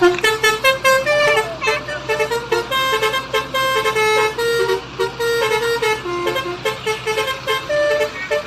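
Basuri 'telolet' multi-tone musical air horn on a bus, playing a quick tune of short stepped notes one after another without a break.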